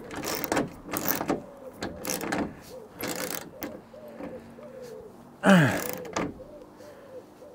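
Hand socket ratchet clicking in short runs as it tightens a nut on a solar-panel roof bracket, the bolt held from below by a long spanner; the fastener is turning and taking up. One louder burst comes about five and a half seconds in.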